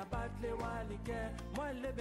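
Background music: a melody line over held bass notes.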